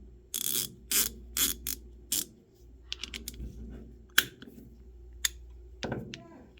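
A Varma 3/8-inch-drive, 90-tooth single-pawl ratchet being worked by hand: a run of sharp clicks from the head, including a short burst of fine rapid ticks about three seconds in.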